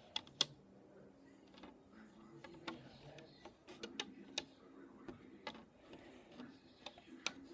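Irregular sharp plastic clicks and taps as rubber loom bands are hooked onto the pegs of a plastic Crazy Loom one after another.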